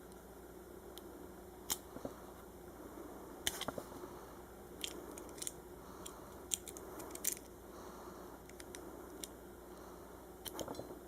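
Wire cutters snipping and stripping the insulation off thin electrical wires: irregular sharp clicks and snips, some in quick clusters, with a little handling noise between them.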